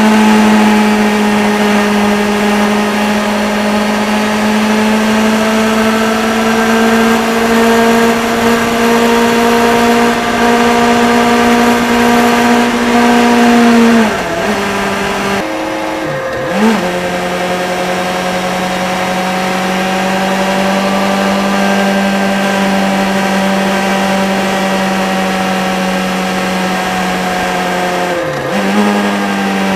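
Motorcycle engine running at steady revs under way, with wind and road rush. About halfway through the revs drop briefly as the throttle closes, then settle back to a steady, slightly lower pitch, with another short dip near the end.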